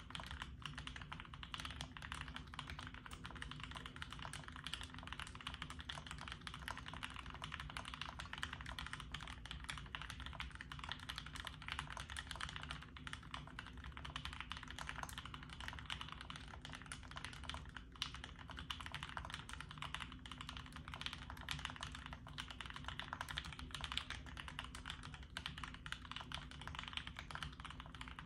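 Continuous fast typing on a Bear65 V1 custom mechanical keyboard with lubed-and-filmed Marshmallow switches, a polycarbonate plate, Durock stabilizers and GMK Shoko keycaps: a dense, even stream of keystrokes with no pauses.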